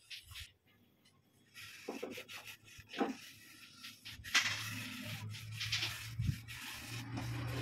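Wood rubbed and handled with a few light knocks, then a low steady hum of the wood lathe's motor comes up about four seconds in.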